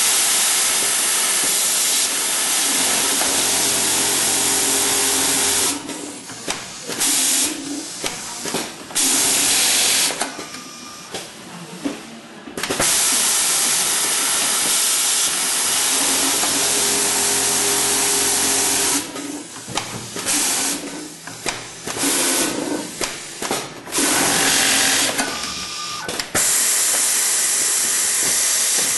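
Semi-automated industrial sewing line for mop fringes running in cycles. Runs of several seconds of loud, even rushing noise alternate with shorter pauses full of sharp clicks and clacks from the machine's mechanism.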